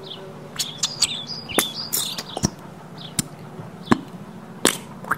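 Birds chirping in short, high, gliding chirps, with sharp ticks scattered through about once a second.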